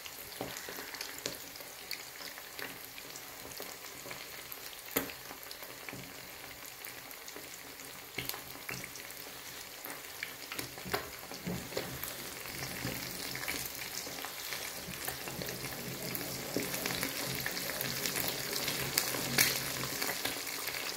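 Four eggs frying in a frying pan: a steady sizzle with scattered pops and crackles of spitting fat, growing a little louder about halfway through.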